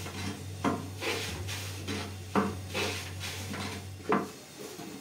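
Kitchenware being handled: three sharp knocks about a second and three-quarters apart, with scraping and rubbing sounds between them.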